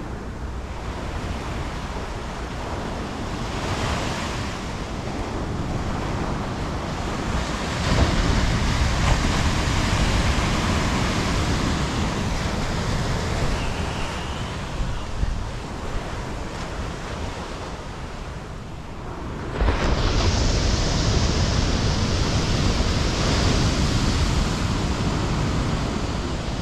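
Ocean surf breaking and washing up a sandy beach, with wind buffeting the microphone. It swells louder about eight seconds in and again, suddenly, about three quarters of the way through.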